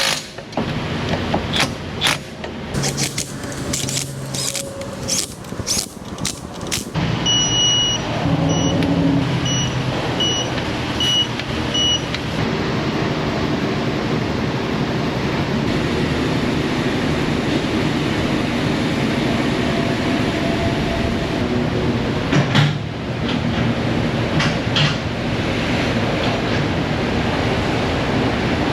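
A string of sharp clicks and knocks, then a car running steadily with five short, evenly spaced electronic beeps about halfway through the first half.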